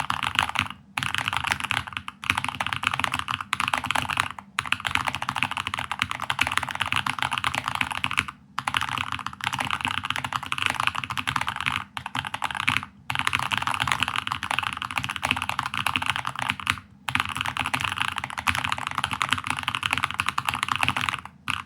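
Very fast typing on a Keychron K8 Max mechanical keyboard with Invokeys Hojicha Reserve tactile switches: a dense, continuous clatter of keystrokes, broken every few seconds by short pauses of under a second.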